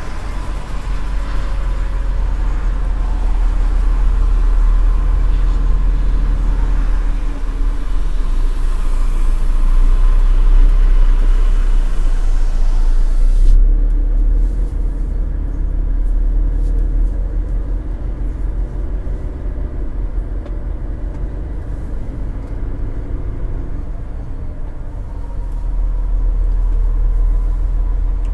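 Truck engine and road rumble heard from inside the cab while crawling through slow autobahn traffic, a steady deep drone. About halfway through the hiss above the rumble cuts off suddenly, leaving mostly the low drone.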